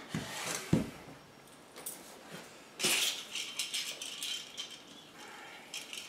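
Metal handcuffs rattling and clinking as they are handled, in scattered clicks from about halfway through. Two soft thumps come just before, in the first second.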